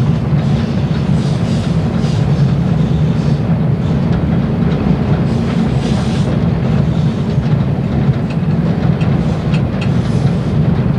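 EMD E8 diesel locomotives in Pennsylvania Railroad paint passing with a passenger train, each unit's twin 12-cylinder engines running steadily, with wheel clatter on the rails. The sound is loud and even throughout.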